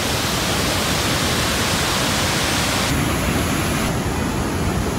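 Steady, loud rush of a large waterfall's falling water.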